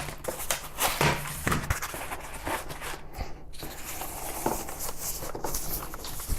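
Rustling, scraping and light knocks of packaging being handled as a boxed keyboard is unpacked.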